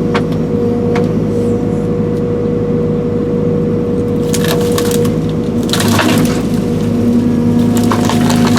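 Link-Belt 210 excavator's diesel engine running steadily under hydraulic load, its note shifting about six seconds in, while wood and roots crack and splinter as the tree is ripped out of the ground, with a cluster of cracks about four to six seconds in.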